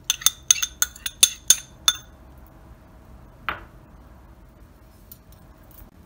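Metal spoon clinking against a bowl as yogurt is scraped and knocked out of it. There are about eight quick, ringing clinks in the first two seconds and a single softer knock about halfway through.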